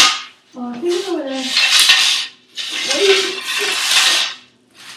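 A person's straining grunts mixed with heavy breathy, rustling noise, in two efforts of about a second and a half each, while lying flat on the floor reaching for a stuck puck.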